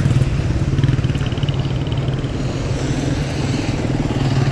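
A motor vehicle's engine running steadily close by, its low pitch unchanging, amid street traffic.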